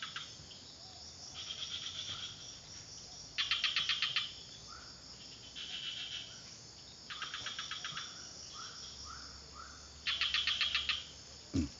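An insect calling in rapid, pulsing trills of about a second each, five times over, with a few short chirps in between. A brief thump near the end.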